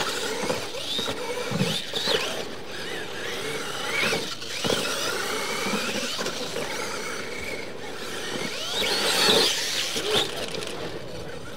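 Radio-controlled monster trucks racing: their electric motors and geartrains whine, the pitch rising and falling as they accelerate and let off, over tyre noise on dirt, with a couple of sharp knocks from the trucks hitting the ground.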